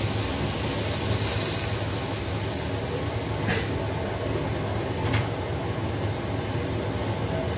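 Wok of shredded cabbage cooking over a gas stove burner just after water is poured in: a steady rushing hiss over a low hum, briefly brighter about a second in. Two light clicks come about three and a half and five seconds in.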